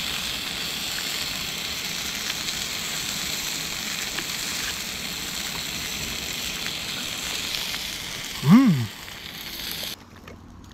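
Bratwursts sizzling in a pan over a small gas-canister camping burner, a steady hiss. Near the end comes a short hummed 'mmh' that rises and falls, then the sizzling stops suddenly as the burner is turned off.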